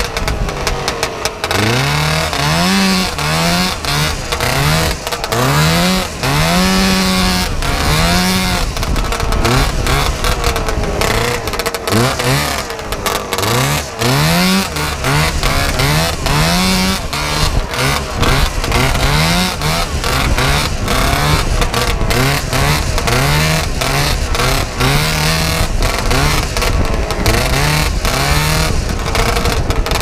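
Two-stroke snowmobile engine under way on a trail, its revs climbing and dropping back over and over as the throttle is worked, with wind and bumps buffeting the microphone.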